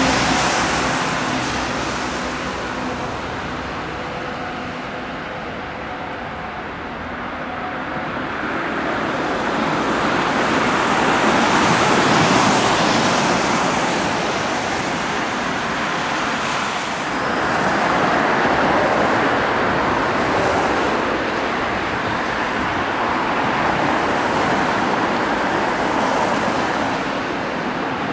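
Airbus A320 jet engines (CFM56) during landing: a steady whine that fades over the first several seconds, then a broad rush of reverse thrust on a wet runway that builds to its loudest about twelve seconds in. Steady jet noise from an A320 on the runway continues after that.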